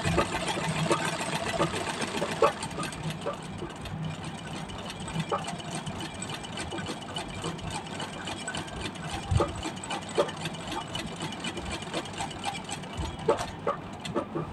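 Classic straight-stitch treadle sewing machine running steadily while stitching free-motion embroidery, a fast even run of needle clicks with a few louder knocks.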